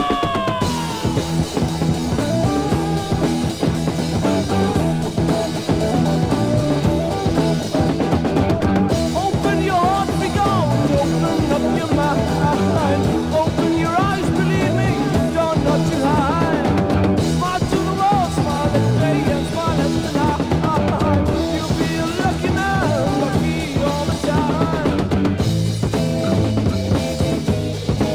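Early-1970s heavy psych rock playing an instrumental passage: a drum kit keeps a steady beat under a wavering, bending lead line, with a falling glide in the first second.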